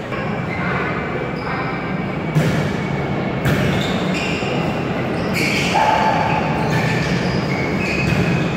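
Volleyball being hit during a rally: three sharp slaps of hands on the ball, about one to two seconds apart, ringing in a large echoing gym.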